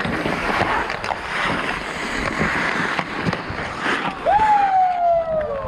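Ice hockey skates scraping and carving the ice, with sharp clicks of sticks and puck. About four seconds in, a single long shout rises and then slowly falls in pitch.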